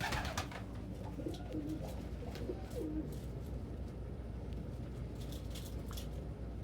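Domestic pigeons cooing, a few short low coos in the first three seconds, over a steady low hum, with a few faint clicks later on.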